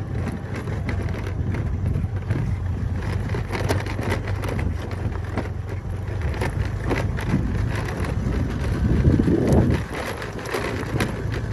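Motor scooter running steadily on an unpaved road, with wind buffeting the phone's microphone and short knocks and rattles from the bumpy surface; louder briefly about nine seconds in.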